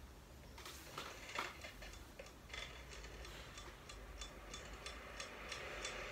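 Faint, steady ticking of a pocket watch, a few ticks a second, from a music video's soundtrack playing back in the room.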